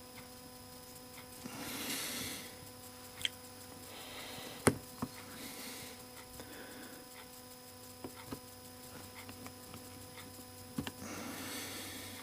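Small clicks and taps of parts being handled while a new piece is fitted to a DeWalt impact driver's quick-change bit holder, with one sharper click a little under five seconds in. A faint steady hum sits underneath.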